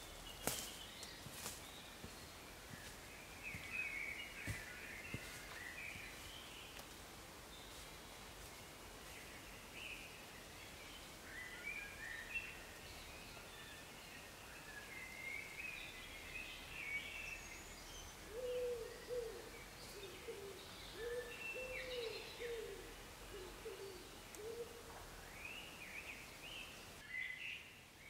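Spring woodland birdsong: several birds singing in short scattered phrases. In the second half a run of low, repeated notes joins them, and there are a few sharp clicks at the start.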